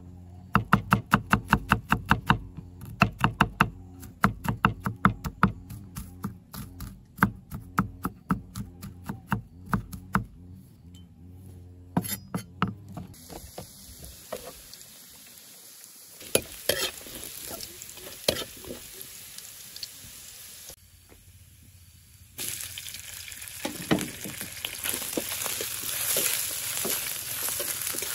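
A knife chopping on a cutting board in quick, even strokes, about three or four a second, for the first ten seconds or so. Then food frying in a pan with a few utensil clicks as it is stirred; the sizzling grows louder and steadier about two-thirds of the way through.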